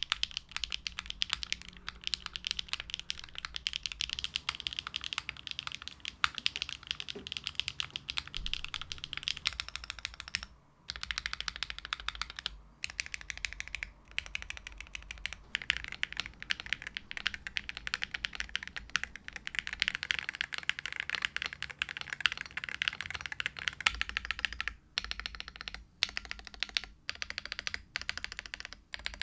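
Custom 60% mechanical keyboard typed on quickly and continuously as a sound test: a dense run of key clicks, with a few brief pauses.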